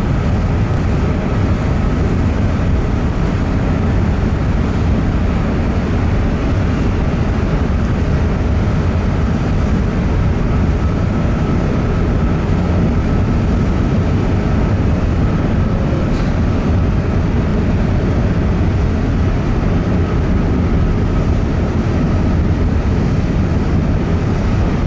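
Steady low rumble of a large car ferry's engines and propellers while it manoeuvres into its berth, with a faint steady whine above it.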